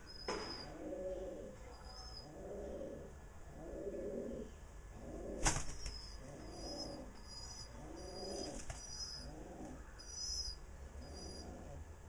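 Pigeon cooing over and over, a low warbling coo about once a second. Small birds chirp faintly in the background, and there is one sharp tap about five and a half seconds in.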